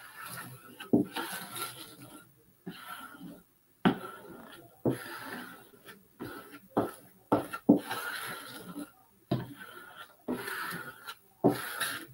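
A plastic smoothing squeegee scraping in short strokes over glued paper on a glass window pane, about one stroke a second. Each stroke starts with a sharp tap.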